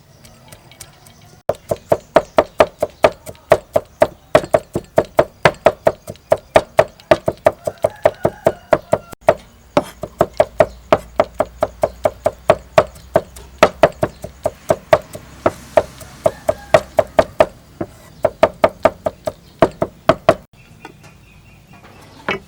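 A knife chopping steadily on a cutting board, about three to four strokes a second, starting about a second and a half in, with a couple of brief pauses, and stopping a couple of seconds before the end.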